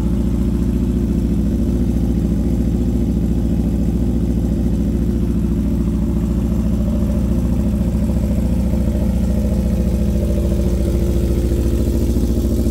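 Aprilia RSV4 Factory V4 engine idling steadily through an SC-Project carbon slip-on exhaust, warming up after a cold start.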